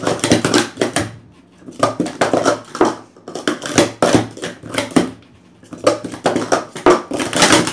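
Blue Pro Series 2 plastic sport-stacking cups clattering as they are stacked up and down at speed on a stacking mat. The clatter comes in four quick flurries of rapid clicks with short pauses between them.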